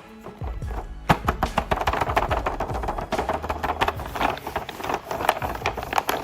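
Crinkling, crackling plastic packaging being handled in a rapid, irregular run of small clicks, over faint background music.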